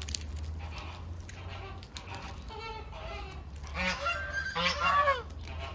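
Large birds honking: a few softer honks, then two loud, drawn-out calls that fall in pitch near the end.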